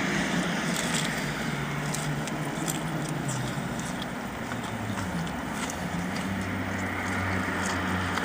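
Steady low vehicle hum with slowly shifting engine tones, and faint scattered clicks and rustles of things being handled.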